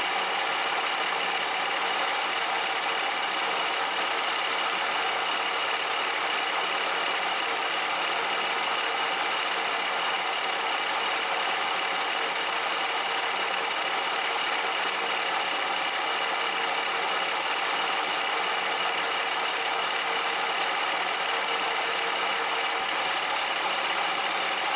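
Bridgeport milling machine running and cutting, steady machining noise with a constant motor hum, as the welded-up jaws of a Lovejoy coupler are milled back to shape.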